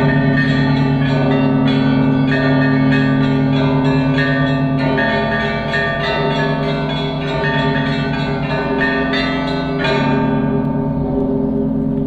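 Russian Orthodox church bells rung in a full peal (zvon), a ringing before the Gospel: small bells struck rapidly, several strokes a second, over the lasting hum of larger bells. About ten seconds in the small bells stop and the larger bells ring on.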